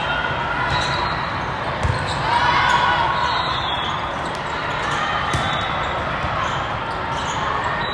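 Gym during a volleyball match: steady crowd chatter and voices, with a few dull thuds of the ball.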